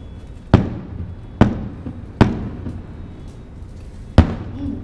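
Fireworks display: four aerial shells bursting with sharp booms, the first three in quick succession and the fourth about two seconds later, each fading out in a short echoing tail.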